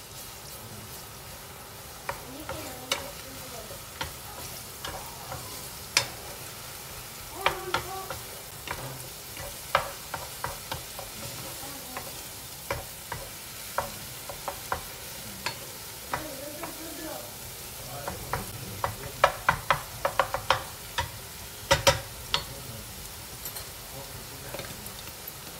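Minced garlic sizzling steadily as it fries in a stone-coated frying pan, while a wooden spoon stirs it and knocks against the pan. The knocks come every second or so, with a quick run of them about three-quarters of the way through.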